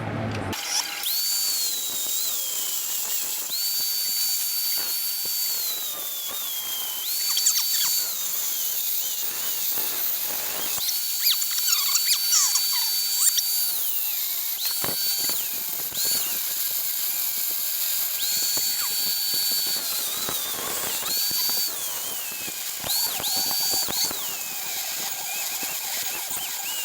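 Harbor Freight angle grinder cutting through a steel motorcycle fairing bracket: a high whine that sags in pitch each time the disc bites into the metal and climbs back when eased off, repeated many times over a steady hiss of grinding.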